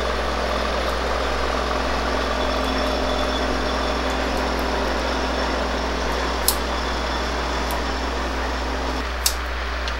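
Diesel switcher locomotive passing a grade crossing behind a passenger car, its engine running steadily with a low drone that drops away near the end. Two short sharp clicks, one just past halfway and one near the end.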